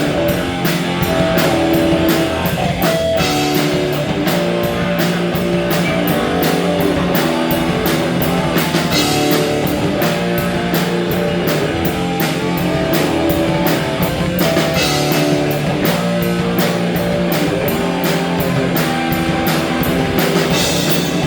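A live rock band playing a song: guitar over a drum kit, with cymbal strokes keeping an even beat of about four a second.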